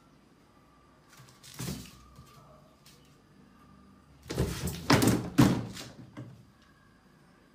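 Hollow knocks and thumps on plastic cat litter boxes as a cat moves and lands on them: one thump about a second and a half in, then a rapid run of louder knocks a little past the middle.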